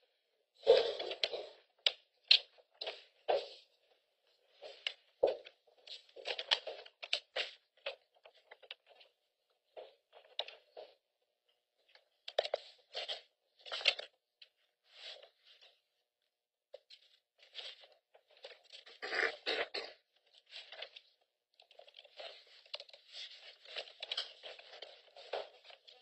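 Sheets of paper being handled and shuffled: irregular rustling and crinkling that comes and goes, with a few sharper crackles, and a denser stretch of rustling near the end.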